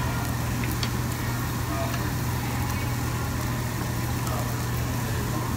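Steady low hum and hiss from a Korean barbecue table grill, with its overhead exhaust fan running and meat sizzling on the grill plate. A few light clicks of chopsticks and a fork on dishes.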